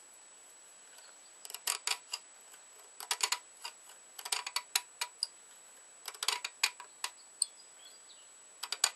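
Light metallic clicks and taps in five short clusters, about a second or so apart: small hand tools working against and set down on metal while the knife's parts are being marked out.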